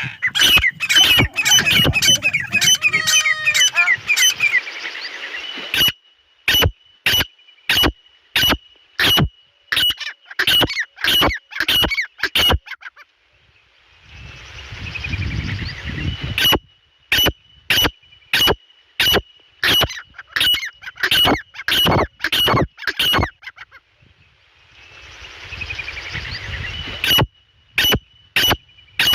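Grey francolin (dakhni teetar) calling: loud, sharp, repeated notes about two a second, in long runs that break off twice for a few seconds, when a softer rushing noise takes over.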